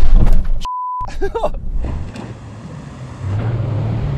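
Car engine and tyres churning through muddy water. About two-thirds of a second in, a short pure censor beep replaces a word, with everything else cut out beneath it. The car then settles into a steady low engine drone as it keeps wading.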